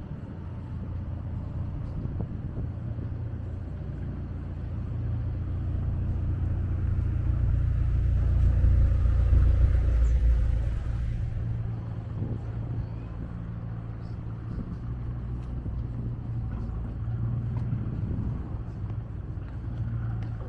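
Road traffic rumbling along a city street, with one vehicle passing close and loudest about eight to eleven seconds in.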